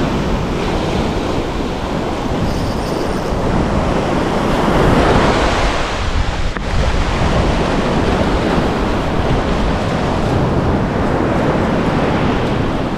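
Surf washing up and over the sand around the feet, a steady rush of foaming water that swells loudest about four to five seconds in, with wind buffeting the microphone.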